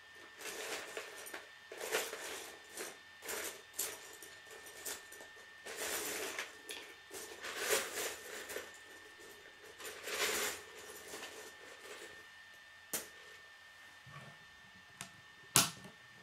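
Plastic K'nex pieces being handled and rummaged through: irregular rustling and clattering for most of the time, then a few sharp clicks, the loudest one shortly before the end.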